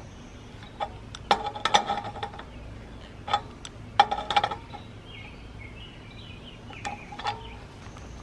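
A metal wrench clinking against metal pipe fittings as a brass fitting on a pressure gauge and solenoid valve line is tightened: a few sharp clinks with a short ring, in clusters about a second in, around three to four seconds, and near seven seconds.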